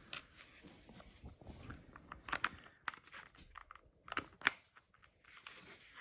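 Small sharp clicks and light rattling as a caravan door lock barrel with its key is worked by hand into the back of a plastic door handle housing. A handful of louder clicks come between about two and four and a half seconds in.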